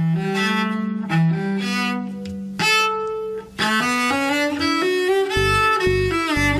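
A cello played with a bow: a melody of held notes, changing pitch every second or so. A deeper, pulsing part comes in about five seconds in.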